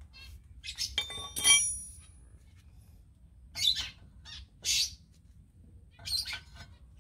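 A metal wrench clinks and rings against steel a few times about a second in, as it is fitted to the brake caliper carrier bolt. A few short, sharp, high-pitched squawks follow later.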